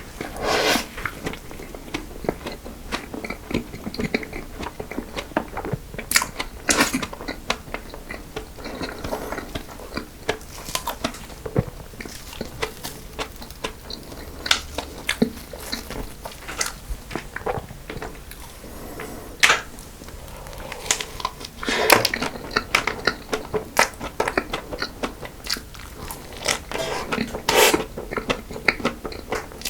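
Close-miked eating of cream cake and choux pastry: irregular bites, crunches and wet chewing, with several louder clusters of bites.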